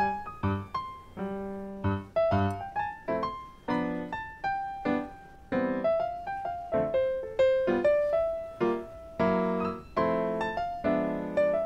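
Background music: a light piano tune, its notes struck one after another and fading.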